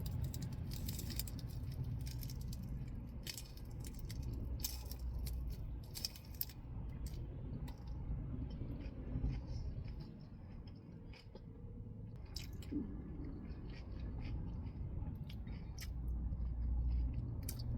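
Close-up chewing of a raw lettuce-boat taco filled with mushrooms and avocado: irregular crisp crunches of the lettuce, over a low steady rumble.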